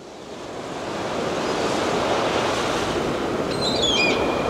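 Sea surf, a steady wash of waves, fading in over the first second or so, with a few short high chirps near the end.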